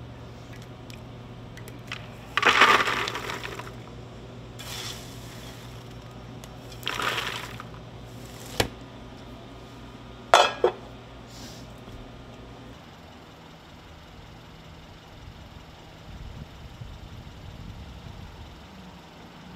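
Popcorn poured from a scoop into a paper tub: several rustling pours, the longest and loudest about two seconds in, then a click and a couple of sharp knocks, over a steady low hum that stops about two-thirds of the way through.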